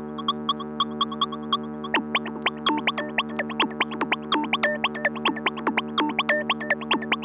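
Old-school electronic dance music played from vinyl: a fast run of short, high synthesizer notes over a steady held drone, with quick notes that drop sharply in pitch layering in about two seconds in.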